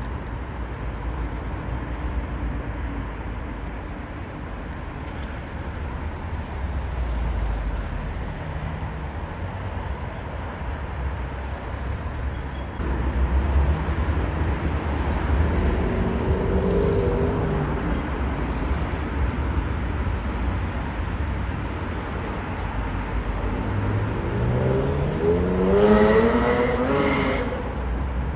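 Steady low rumble of car and road noise. Near the end an engine's pitch rises steadily for a few seconds as it accelerates, the loudest moment.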